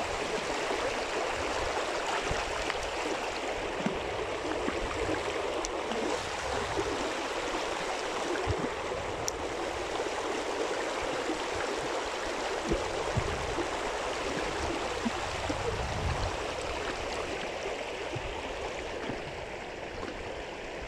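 Fast, shallow river current rushing steadily over its bed, easing slightly near the end.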